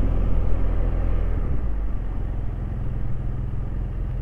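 BMW F800GS parallel-twin engine running at low speed. About a second and a half in, its note drops and gets a little quieter as the throttle eases off.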